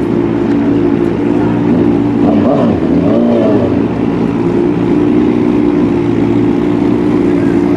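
Sport-bike engines of a nitro Suzuki Hayabusa drag bike and a Kawasaki Ninja H2 idling steadily at the drag strip start line, a loud, even engine note with no revving.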